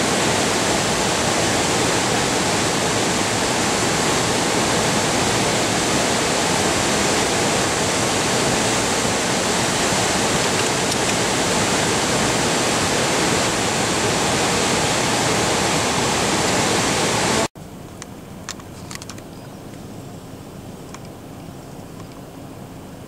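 Loud, steady rushing of a flood-swollen river in white-water spate. It cuts off suddenly about three-quarters of the way through, leaving a faint low hum and a few light clicks.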